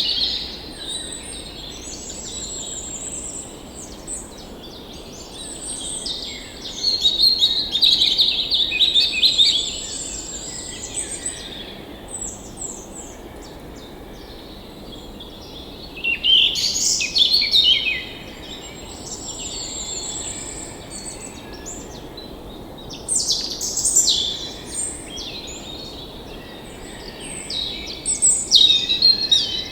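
Songbirds singing and chirping in bursts of busy, high-pitched phrases, loudest about seven, sixteen, twenty-three and twenty-eight seconds in, over a faint steady background hiss.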